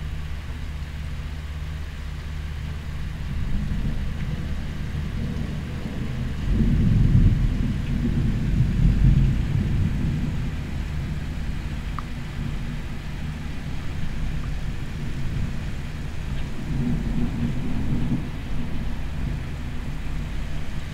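Air conditioner coming on at the start and running with a steady low hum. Thunder rumbles over it from about six to ten seconds in, and again more weakly around seventeen seconds.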